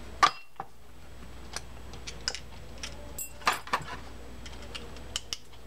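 Scattered small metallic clicks and taps of a screwdriver and small parts against a Penn Jigmaster reel's side plate as a tight side-plate screw is worked into place. A sharp click just after the start is the loudest, with a few more clustered about three and a half seconds in, over a steady low hum.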